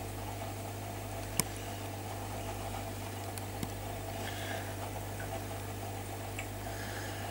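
Steady low electrical hum under a faint hiss, with one sharp click about a second and a half in and a fainter one a couple of seconds later.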